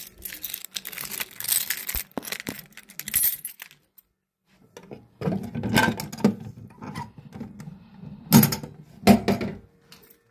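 Clear plastic protective cover over a fire alarm pull station being handled and lifted, rattling and clacking, with two sharp clacks near the end as the pull station is pulled to set off the fire alarm. Rustling handling noise comes first, then a brief near-quiet pause about four seconds in.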